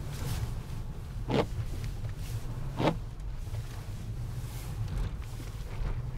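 Car engine and road noise heard from inside the cabin, a steady low rumble, broken twice by a brief sharp noise about a second and a half apart.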